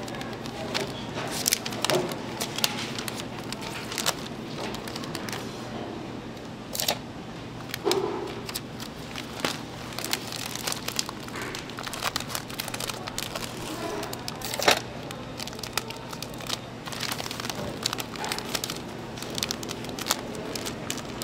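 Clear plastic wrapping film crinkling and crackling as it is pulled and folded around a block of castella sponge cake, with irregular sharp crackles throughout. A low steady hum runs underneath.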